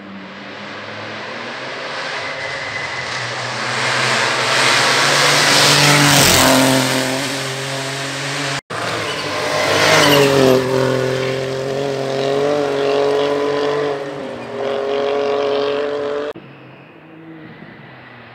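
Rally car at full throttle, growing louder as it approaches, then dropping in pitch as it passes. After an abrupt break a rally car engine runs loud at high revs, its pitch wavering, until it cuts off suddenly near the end into quieter background.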